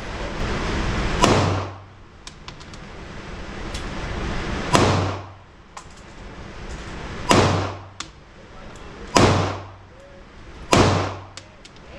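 Pistol shots at a shooting range: five single shots fired a few seconds apart, the gaps shortening toward the end, each a sharp crack with a short echoing tail. A hiss swells between the shots.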